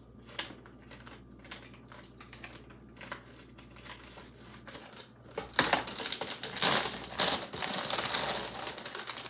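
Plastic packaging being handled: light clicks and taps at first, then from about five and a half seconds in, loud crinkling of a clear plastic bag as a wrapped castor oil pack is pulled out and lifted.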